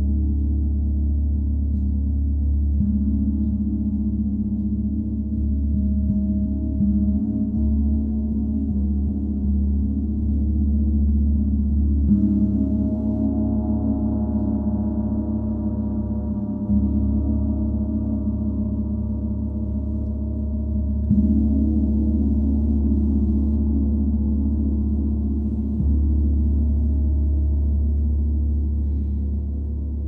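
A 32-inch Paiste Symphonic gong ringing continuously in a deep, many-toned wash, struck softly again every several seconds so that the sound swells anew about 3, 12, 21 and 26 seconds in.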